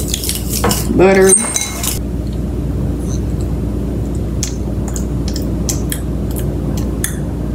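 Plastic fork clicking and tapping against a small bowl while a melted-butter glaze is stirred: scattered light clicks, a few a second, over a steady low hum.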